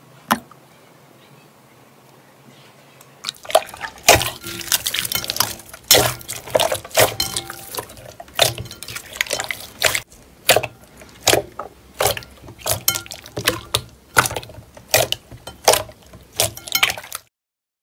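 Slime being squeezed and poked by hand, making irregular wet clicks and pops. One sharp click comes just after the start. A quick run of them begins about three seconds in and cuts off suddenly near the end.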